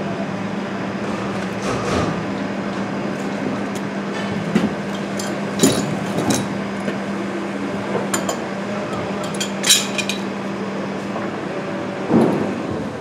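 Sharp metal clinks and taps as wrenches and brass gas fittings are handled: about half a dozen scattered clicks, over a steady low hum.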